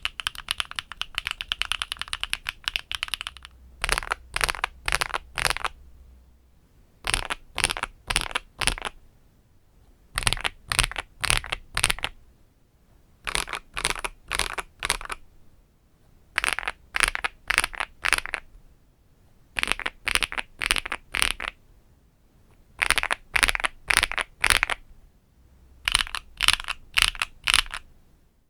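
Mechanical keyboard fitted with HMX Pado V2 (Canglan V2) switches. It is typed on quickly for about three seconds, then keys are pressed in groups of four (A-S-D-F, then J-K-L-;), eight groups spaced about three seconds apart.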